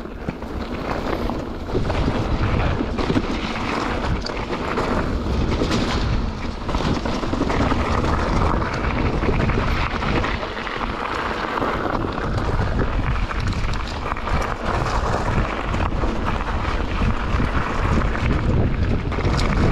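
Mountain bike riding fast down a rocky gravel trail: wind rushing over the action camera's microphone over the rumble of tyres on loose stones, with frequent clatter from the bike.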